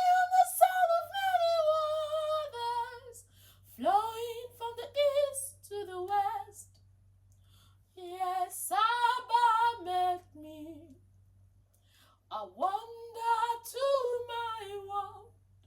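A woman singing unaccompanied in four phrases separated by short pauses, with a faint steady low hum underneath.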